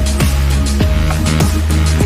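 Electronic background music with a steady beat: a deep kick drum falling in pitch on each beat, a sustained bass line and hi-hats.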